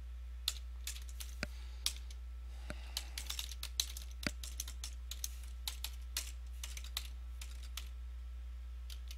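Computer keyboard being typed on: irregular keystrokes, with a quick run of them in the middle, over a steady low hum.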